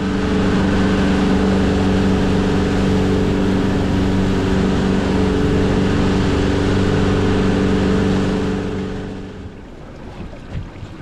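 A 150 hp outboard motor running steadily at speed, with several even tones and a rush of water and wind. About eight to nine seconds in it is throttled back and the boat comes off plane, dropping to a quieter idle with water washing around the hull.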